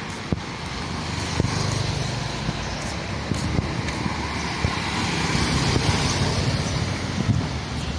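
Small motorbike engines and tyre noise on the road, the loudest a motorbike pulling a passenger trailer (tuk-tuk) that passes close by about six seconds in.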